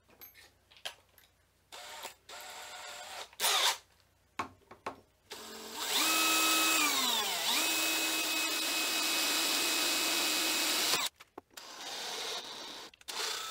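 Cordless drill with a twist bit drilling into aluminium plate. A few short bursts of the motor, then a steady whine for about five seconds that dips in pitch once and recovers, and a softer run near the end.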